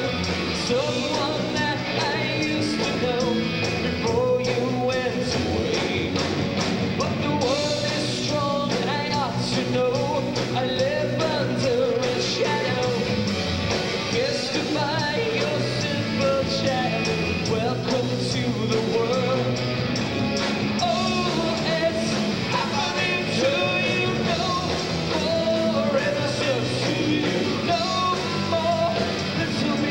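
Rock band playing live on electric guitars, bass and drums, with a singing voice over them, recorded through a camcorder's microphone.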